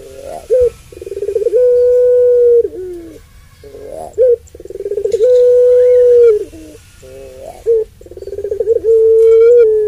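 Puter pelung, a domestic Barbary dove bred for its long coo, cooing three times. Each call is a stuttering run-up into a long held note that slides down at the end.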